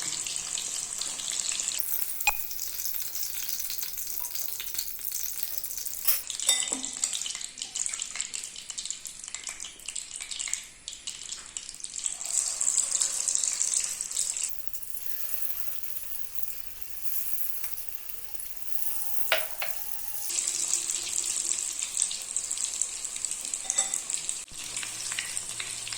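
Cornflour-coated chicken pieces deep-frying in hot sunflower oil: a steady sizzle that changes in strength several times, with a few short clicks.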